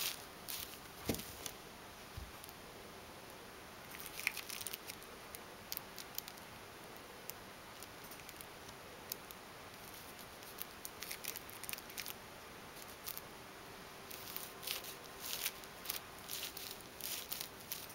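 Ragdoll cat playing with a plastic drinking straw: scattered bursts of light ticking, scratching and rustling from the straw and the cat's paws and claws on a wooden floor, with a couple of soft thumps in the first two seconds.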